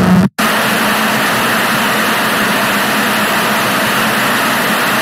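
Loud analog TV static: a steady white-noise hiss, broken by a brief dropout about a third of a second in, with a faint low hum under it that fades out partway through.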